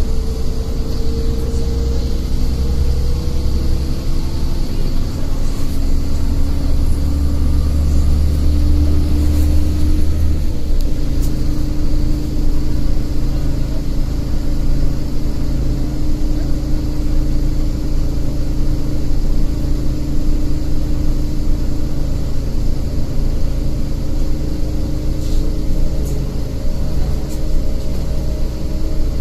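City bus engine and road noise heard from inside the passenger cabin while the bus drives along, a steady drone with engine tones. About ten seconds in the deep low drone eases off and a steadier, higher engine note carries on, with a few faint rattles.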